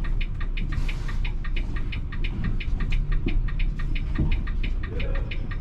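Volvo B450R coach's diesel engine running low, with an even, rapid ticking of about four to five clicks a second over the rumble. A short rising tone comes about five seconds in.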